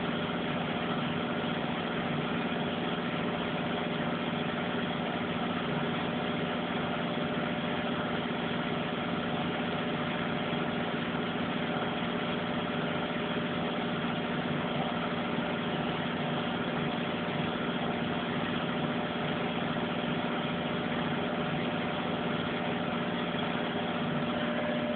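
Front-loading washing machine in its final high-speed spin: the drum and motor run at a steady speed, giving an even hum with a steady whine that neither rises nor falls.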